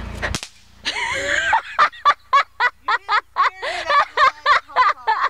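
A woman laughing in rapid repeated bursts, about four a second, after a brief low rumble of wind on the microphone at the very start.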